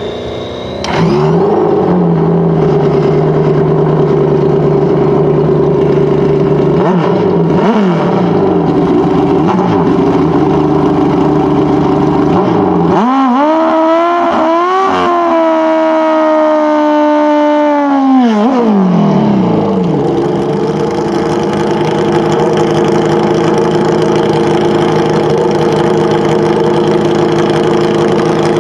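Pro Stock drag motorcycle engine fires about a second in and idles, with a few quick throttle blips, then is held at high revs for about five seconds in a burnout before dropping back to a steady idle at the starting line.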